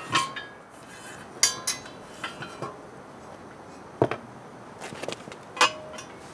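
Steel snowblower auger parts, the auger flights and small spacers and bushings, being pulled off the auger shaft and set down on pavement: scattered metallic clanks and clinks, some ringing briefly, with the loudest about a second and a half in, at four seconds and near the end.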